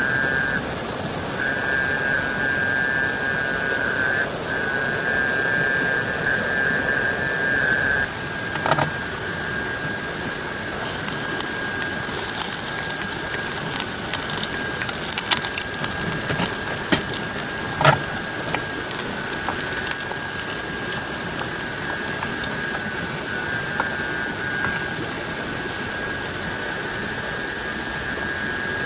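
Steady rain falling, with a steady high trill running through it and a faster high pulsing joining about two-thirds of the way in. Two sharp knocks, about 9 and 18 seconds in.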